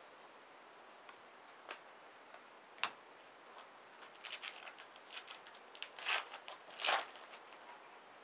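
Trading cards being handled and slid through by hand: faint scattered clicks and brief sliding swishes of card stock, with two louder swishes in the second half.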